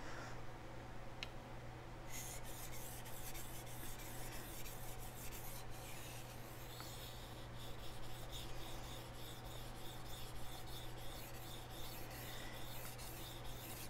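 A chef knife's steel edge being scraped back and forth across a wet Chosera whetstone in quick, evenly repeated strokes, grinding the bevel. The strokes start about two seconds in.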